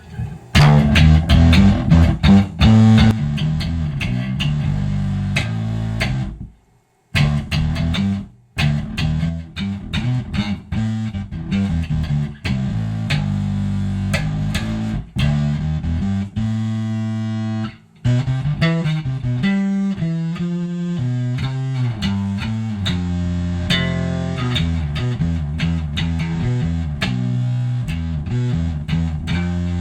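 Electric bass played through a Big John's Electronics 5-knob Mammoth fuzz pedal, a clone of the Zvex Wooly Mammoth, set with the pinch control rolled off for a tight fuzz, blended with a clean bass amp that keeps the low end. A run of plucked notes and riffs that breaks off briefly a few times.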